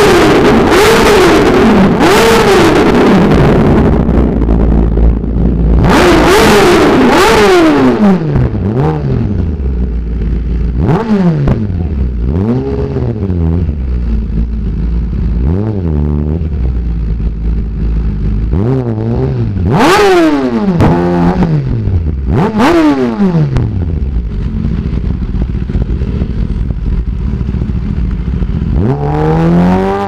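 Sport motorcycle with an Austin Racing aftermarket exhaust being revved in repeated throttle blips, the engine note rising and falling again and again. The loudest blips come at the start, around six to eight seconds in and around twenty seconds in.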